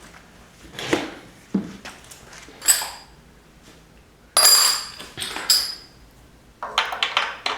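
Small metal hand tools clinking and clattering as they are handled and set down: a string of separate knocks and clinks, a few of them ringing briefly, with a busier clatter near the end.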